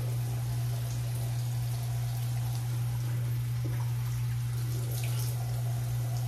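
Tap water running and splashing while the leftover shave soap is rinsed off, over a steady low hum.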